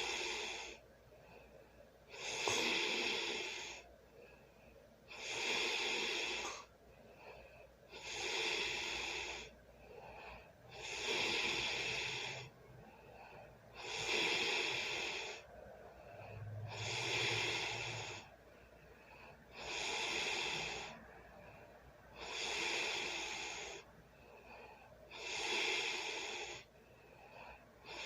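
A sleeping person snoring, one snore about every three seconds, each lasting about a second and a half.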